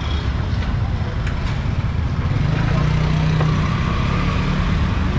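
Street traffic: a steady low rumble of motor vehicles running past, with one engine's hum swelling up about two seconds in and fading again near the end.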